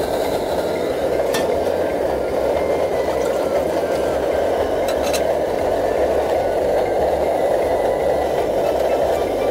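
MSR Dragonfly liquid-fuel stove burning at full flame, a loud steady roar. Water is poured into a pot partway through, with a couple of brief metallic clicks.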